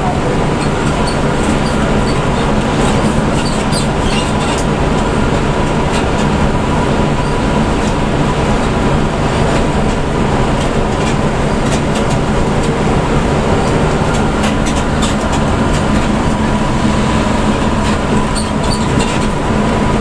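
Cabin noise of a Hino RK diesel coach cruising at highway speed: a steady engine drone mixed with road and tyre rumble. A faint steady whine and scattered light rattles sit over it.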